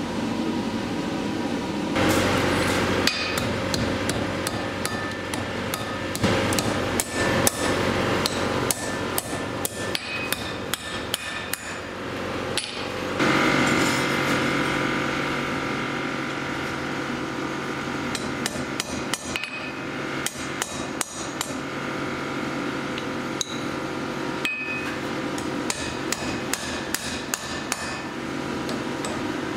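Repeated hammer blows on hot steel on an anvil, starting a couple of seconds in and coming in runs of quick strikes with short pauses, over a steady background hum.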